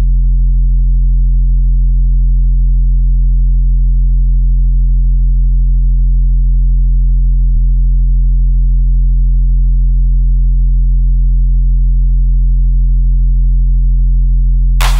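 Electronic music: a loud, steady, low synth bass drone held unbroken, with no drums. A burst of hissing noise comes in right at the end.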